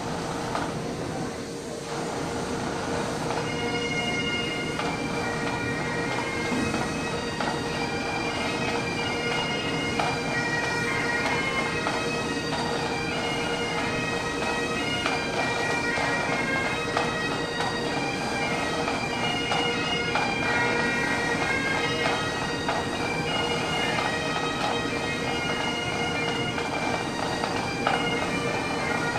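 Bagpipes playing a tune over a steady drone; the chanter melody comes in about two to three seconds in and carries on throughout.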